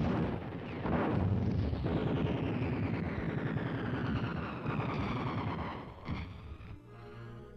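Battle sound effects of gunfire and explosions: a sharp blast at the start and another about a second in, then a sustained rumble that fades away about six seconds in. Music comes in near the end.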